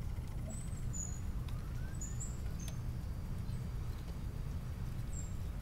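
Low, steady control-room hum with about six faint, short, high electronic chirps from computer consoles and a few light clicks scattered through.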